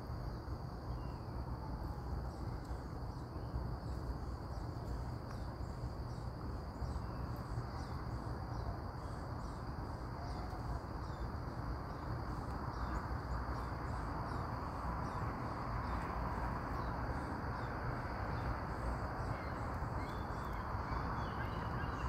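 Steady outdoor background noise with a continuous high insect trill and a few faint bird chirps.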